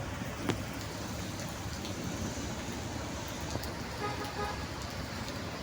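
Steady road-traffic noise with a short vehicle horn toot about four seconds in.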